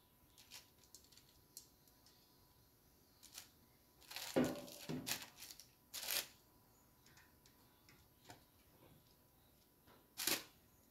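Metal tongs clicking and clattering against a smoker's grill grate and a metal pot as smoked chicken pieces are lifted out and dropped in, with a rustle of paper lining. Scattered light clicks, with louder clatters about four seconds in, around six seconds and again near the end.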